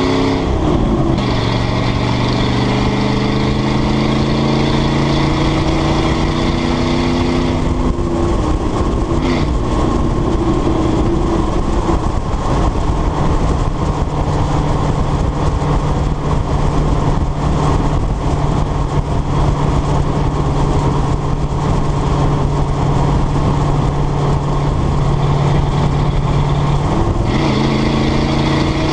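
1995 Ford F150's 302 V8 running through its exhaust cutout system while the truck drives. The engine pitch drops at a gear change just after the start, holds steady while cruising, then rises again near the end as it accelerates, over steady tyre and wind noise.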